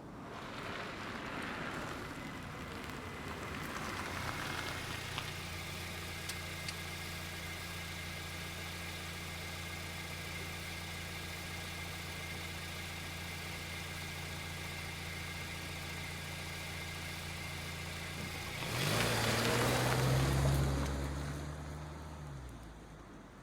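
A car engine comes in and settles into a steady idle for about fifteen seconds. Near the end the car accelerates with a louder surge of engine and road noise for a few seconds, then fades away.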